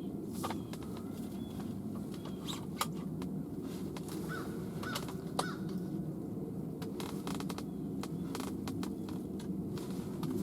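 Outdoor ambience: a steady low rumble with a few short bird calls and scattered sharp clicks.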